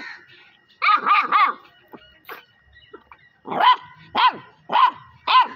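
Puppy barking: a quick run of three barks about a second in, then four more evenly spaced barks about half a second apart, each bark rising and falling in pitch.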